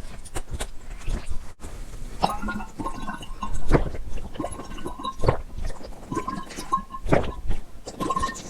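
A person drinking water: a string of gulps and swallows with wet mouth clicks, irregular and close together.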